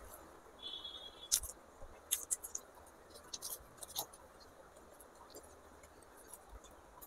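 Faint eating sounds: sparse, scattered wet mouth clicks and chewing ticks from someone eating chole bhature.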